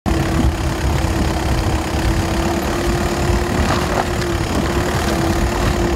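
A car engine running steadily as the car rolls slowly along a potholed asphalt road: a constant low rumble with a steady hum.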